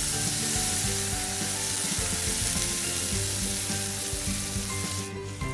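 Eggplant slices sizzling as they fry in hot mustard oil in a wok-like kadhai. The hiss thins out about five seconds in.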